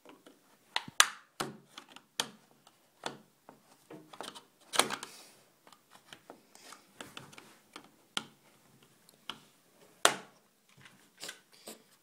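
Plastic remote control case being pried open with a screwdriver: irregular clicks and snaps as the blade works along the seam and the case's clips give, a few of them louder.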